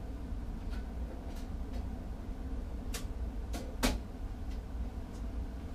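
A few sharp mechanical clicks, the loudest about four seconds in, over a steady low hum: a circuit breaker being switched on to power the welder on 220 V.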